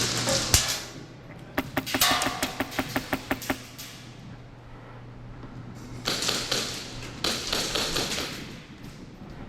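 Airsoft gun firing a rapid string of about a dozen sharp shots over two seconds, with a single shot just before. Stretches of hissing, rustling noise come at the start and again about six seconds in.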